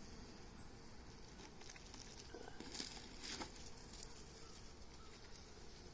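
Faint buzzing of a honeybee colony in an open hive, with a few brief rustling, scraping sounds of handling midway through.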